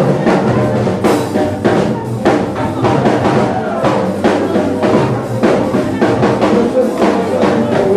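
Loud dance music with a steady drum beat.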